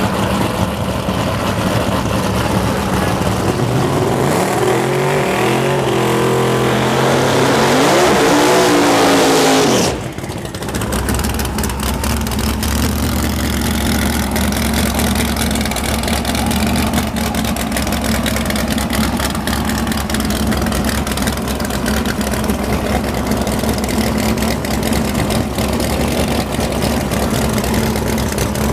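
Race car engines: one engine revs up, rising in pitch, and then cuts off abruptly about ten seconds in. After that, a steadier, lower engine note runs with a fine crackle.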